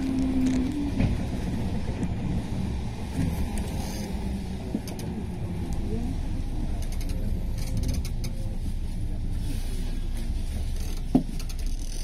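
Cabin noise of a JR West 221 series electric train slowing into a station: a steady low rumble of wheels and running gear. A hum stops about a second in, and a single sharp knock comes near the end as the train nears a stop.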